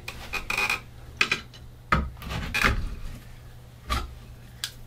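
Screwdriver and a flat metal scraper blade prying at a plastic electrical box in a drywall hole, making irregular clicks and short scrapes as the box is worked loose.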